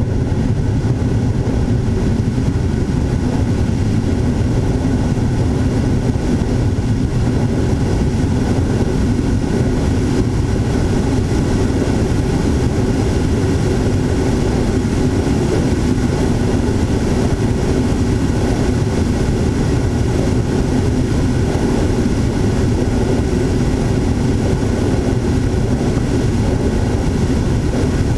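Motor and propeller of an FPV model aircraft heard from its onboard camera in flight: a steady drone with a dense low rumble underneath, unchanging throughout.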